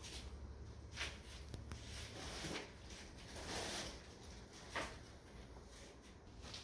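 Faint handling noises: a couple of sharp clicks or knocks, about a second in and near five seconds, and a brief rustle in between, over a low hum.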